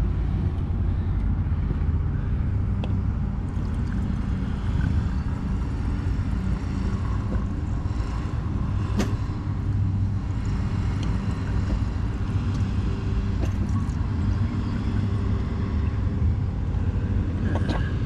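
A 2004 Chevrolet S10 Blazer's 4.3-litre V6 idling steadily, with one sharp click about nine seconds in.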